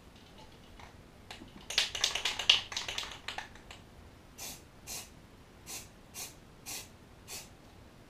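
Rust-Oleum camouflage aerosol spray paint can hissing in short spritzes: a loud, dense run of rapid sprays about two seconds in, then six separate short bursts about half a second apart.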